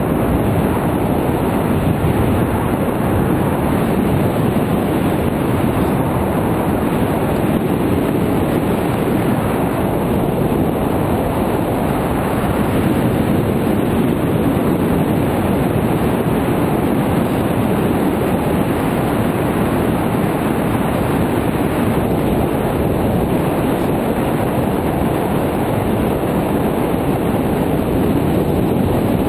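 Steady rush of wind on a GoPro Hero 2's microphone in an open housing, from the airflow of a paraglider in gliding flight.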